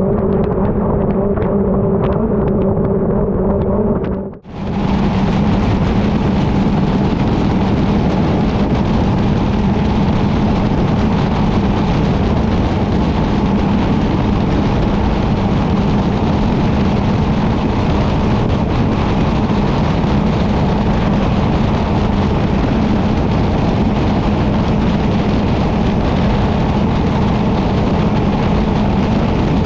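Mercury 60R outboard running at a steady high speed on a small tunnel boat. About four seconds in the sound drops out briefly, then the steady engine tone carries on under a loud rush of spray and wind.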